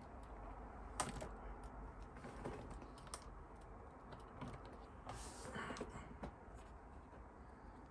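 Light, scattered clicks and taps of small plastic model-kit parts being handled and fitted, with a short rustling scrape about five seconds in.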